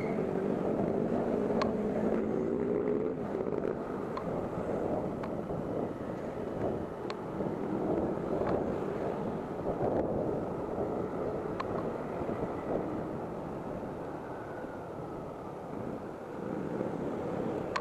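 Steady rush of wind on the microphone and road noise from riding an electric scooter through city traffic, with the engines of nearby cars and motorcycles mixed in.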